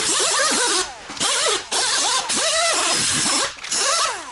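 Handheld power tool cleaning up metal and plastic surfaces on a car subframe, run in several long bursts with short breaks between, its pitch sagging and rising as it is pressed on and eased off.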